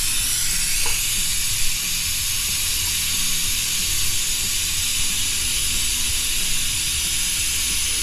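Steady hiss of compressed air at the air-powered Mighty Vac fluid extractor, with a couple of faint clicks about a second in. Background music plays underneath.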